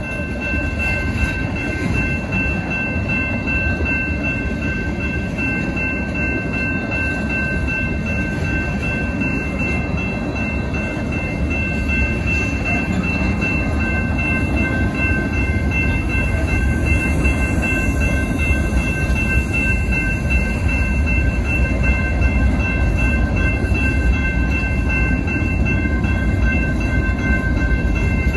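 Freight train cars rolling past, a steady loud rumble of steel wheels on rail that grows a little louder in the second half. The grade-crossing bell rings over it as steady high tones.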